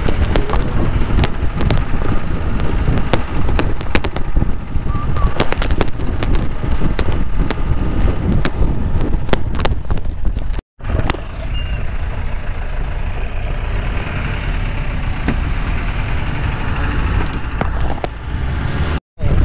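Off-road jeep driving over a rough, bumpy track: a steady low engine and road rumble with frequent rattles and knocks from the body and suspension, most of them in the first half. The sound cuts out briefly twice.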